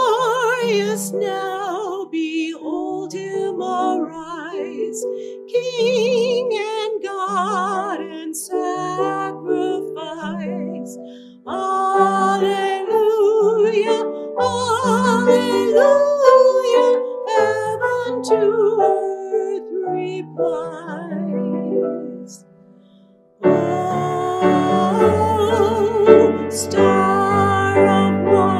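Solo singing with wide vibrato over piano accompaniment. It breaks off briefly about two-thirds of the way through and resumes fuller.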